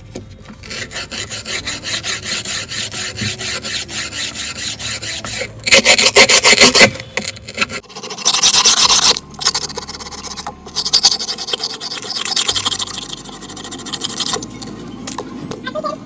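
Rapid rhythmic scraping and rubbing strokes, about five or six a second, as from a tool worked back and forth on a phone during display replacement. The strokes pause twice for a louder, harsher scrape lasting about a second.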